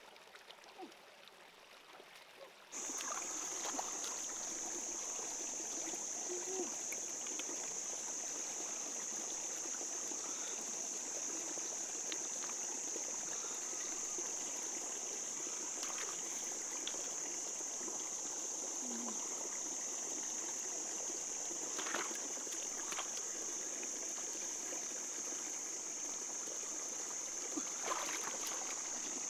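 Shallow stream trickling over rocks, with a steady high-pitched buzz that comes in suddenly about three seconds in. A few brief splashes and knocks as hands pick snails from the water.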